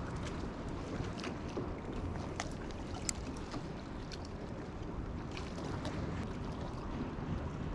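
Wind on the microphone and water lapping at the shore, a steady rumble with scattered small clicks and ticks.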